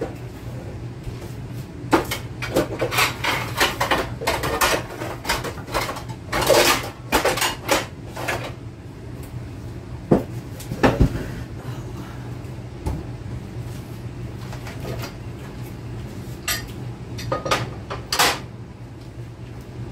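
Metal pots and pans clattering and clanking as they are rummaged through, in bunches of knocks. A few more clanks come near the end, as a pressure cooker lid is set on the stove.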